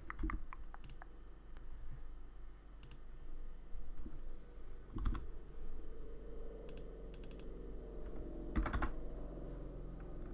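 Computer keyboard keystrokes and mouse clicks, a few short clicks at a time with pauses between them, as values and shortcuts are entered in CAD software.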